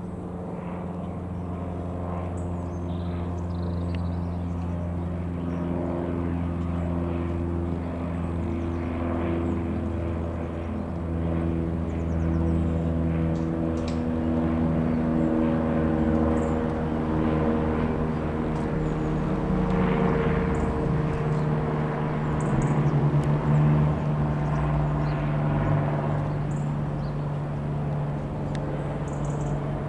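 Piper PA-28-180 Cherokee's single four-cylinder piston engine and propeller droning steadily as the light aircraft flies past. The drone's pitch drifts slowly and it grows louder, loudest about three-quarters of the way in.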